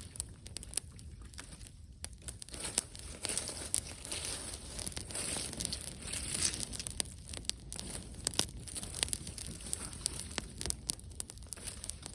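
Wood campfire crackling: frequent sharp pops and snaps over a steady hiss.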